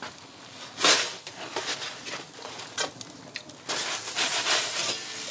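A metal pizza peel scraping and rubbing on the oven's stone base as it is worked under the pizza. There is a sharp scrape about a second in and a longer, louder stretch of scraping over the last second and a half.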